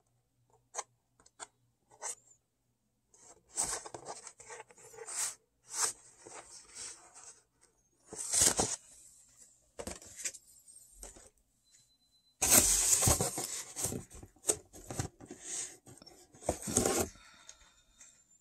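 Funko Pop cardboard box and its packaging handled and opened: scattered clicks at first, then irregular bursts of rustling, with the longest and loudest stretch of rustling and tearing late on.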